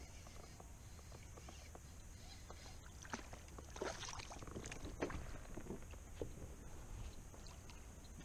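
Splashes from a small bass thrashing at the water's surface as it is reeled in on a fishing line, a cluster of sharp splashes between about three and five and a half seconds in.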